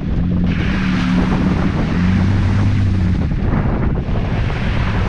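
Vehicle engine running with a steady low hum under a dense rushing noise of wind on the microphone.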